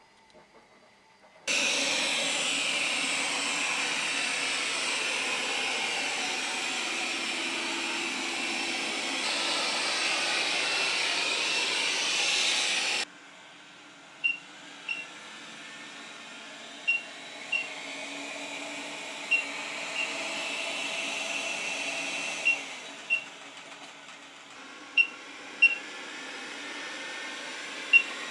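Shellbot SL60 robot vacuum cleaning: a steady hiss that starts suddenly and cuts off abruptly after about eleven seconds, followed by a quieter steady hum with pairs of short high pips every two to three seconds.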